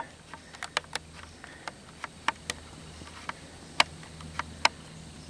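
Faint, irregular sharp clicks, about a dozen over a few seconds, with no steady rhythm.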